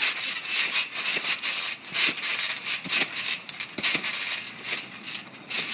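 Bubble wrap laid over a trampoline crinkling and popping as someone bounces on it: a quick, irregular run of sharp snaps and crackles.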